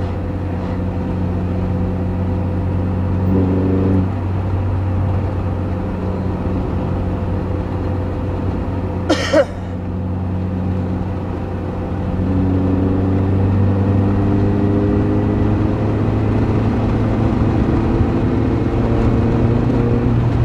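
Honda CR-V's four-cylinder engine heard from inside the cabin, holding one gear with a steady drone. There is a short sharp sound about nine seconds in. From about twelve seconds in the engine gets louder and its pitch climbs slowly as the car accelerates.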